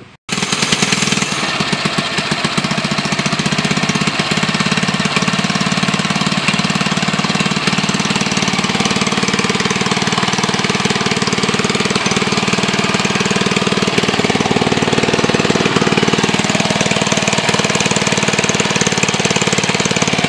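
1976 two-horsepower Briggs & Stratton single-cylinder engine on a mini bike, running steadily at one speed and purring like a kitten.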